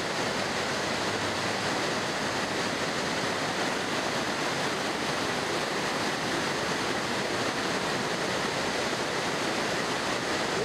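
Fast mountain river rushing steadily through white-water rapids over rocks.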